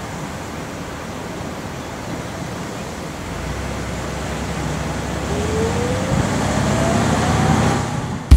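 Road and engine noise of a moving car heard from inside, growing louder from about three seconds in as a deeper rumble builds, with a faint rising whine over the last few seconds.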